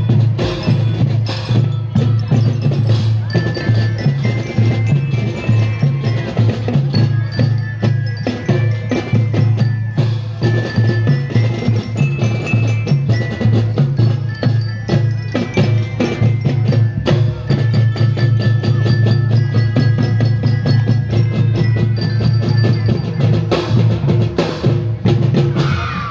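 Drum band playing: a fast, dense run of drum strokes under a melody of bright, bell-like glockenspiel notes.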